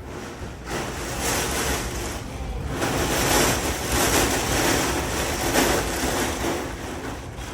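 Storm wind from Hurricane Beryl gusting in strong surges, building about a second in, strongest in the middle and easing near the end, with wind buffeting the microphone.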